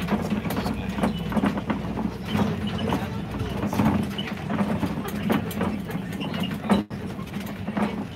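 Safari ride truck driving along a rough dirt road: a steady engine hum with frequent knocks and rattles from the vehicle. The sound cuts out for a moment near the end.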